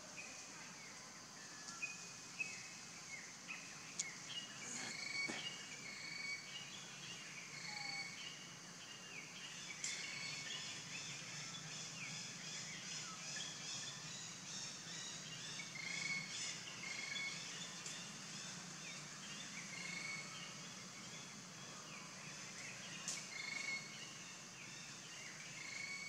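Forest ambience: a steady high insect hum with many birds chirping in short, repeated notes, and a few sharp clicks.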